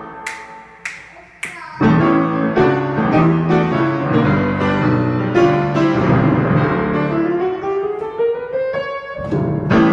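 Three sharp clicks about half a second apart, then piano music in a jazz arrangement, with one tone sliding steadily upward over a few seconds near the end.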